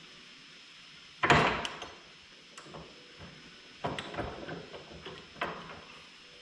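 Metal clanks and knocks from work at a steel bench vise: one loud clank about a second in, then several lighter knocks and clinks.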